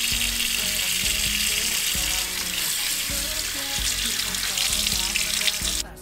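Tap water running into a sink and splashing over tomatoes, a steady hiss that cuts off just before the end. Soft background music plays underneath.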